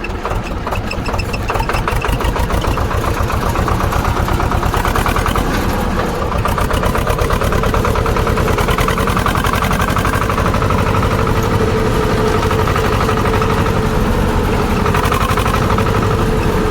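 Swaraj 724 tractor's two-cylinder diesel engine running at low throttle without being revved, a steady fast beat of firing strokes. It grows louder about two seconds in and then holds steady.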